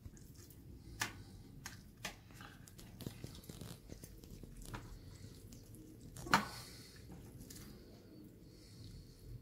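Boiled sheep's head meat being torn off the skull and jaw bones by hand, with scattered clicks of bone and fork against a stainless steel tray and one sharper knock about six seconds in.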